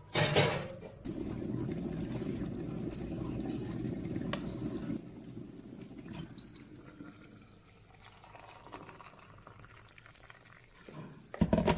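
An electric kettle rumbling steadily as it heats toward the boil, after a sharp knock about a third of a second in. Three short high electronic beeps come about halfway through, and near the end hot water is poured from the kettle into a mug over a tea bag.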